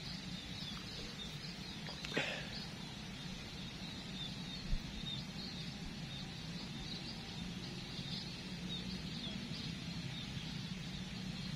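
Outdoor ambience of small birds chirping, short high notes repeating over and over, above a faint steady low hum. Two soft knocks stand out, about two seconds and about five seconds in.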